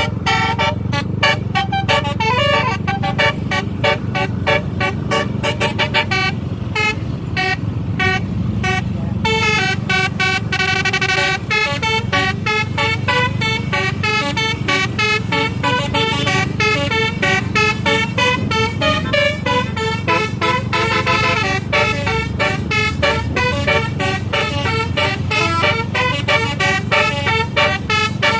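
Basuri-type telolet musical air horn on a bus playing a fast, continuous melody of short horn notes, over the steady low rumble of the bus.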